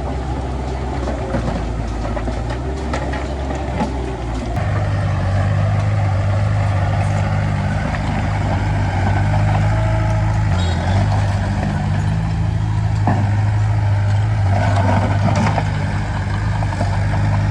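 Heavy diesel engine of a construction machine running steadily, then stepping up to a higher, louder engine speed about four seconds in and holding there.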